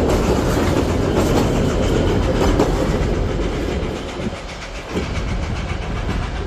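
Puffing Billy narrow-gauge steam train running, with a steady rattling clatter of wheels and carriages on the rails that dips briefly a little past the middle.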